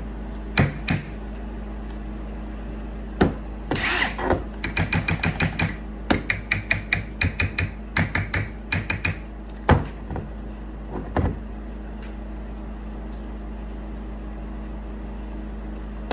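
Hammer blows on a stuck steel axe head as it is worked along a wooden handle: a few single knocks, then a quick run of about four ringing metallic strikes a second for around five seconds, then a couple more single knocks.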